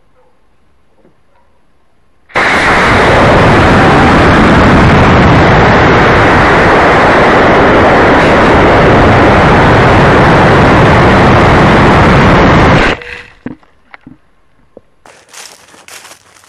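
Rocket launch heard through the tiny microphone of a keychain camera strapped to a homemade model rocket: the cluster of three Estes D engines fires with a sudden, very loud noise about two seconds in. The noise holds steady and loud through the flight and cuts off abruptly about ten seconds later.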